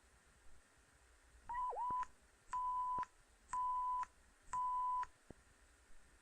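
Alarm system beeping: four steady, even-pitched beeps about a second apart, each lasting about half a second, the first one wavering in pitch as it starts.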